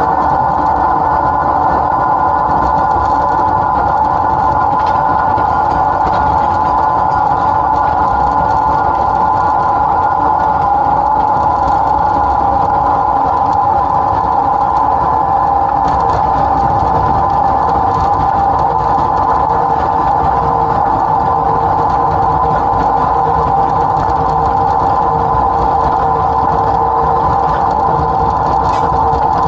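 Class 07 Ruston & Hornsby diesel shunter's engine running steadily, heard close up from the loco's front buffer beam, a low rumble under a steady high whine.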